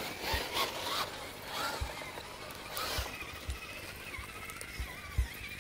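Footsteps on a dirt trail, irregular dull thuds with a little scuffing, and from about halfway through the faint, wavering whine of RC crawler trucks' small electric motors.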